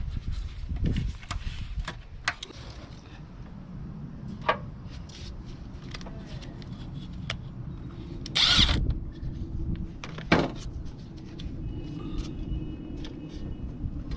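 Hand tools and metal parts clicking and knocking during reassembly work in a car's engine bay, over a steady low rumble. About eight and a half seconds in comes a louder, longer scraping or rushing burst.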